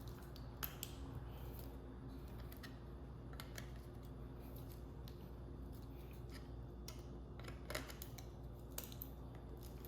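Faint, scattered small clicks and taps of a small part being handled and turned, over a steady low hum.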